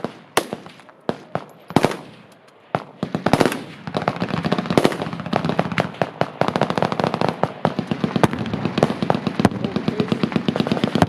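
Full-auto machine-gun fire from several guns: scattered shots and short bursts at first, then from about four seconds in a dense, continuous rattle of overlapping fire.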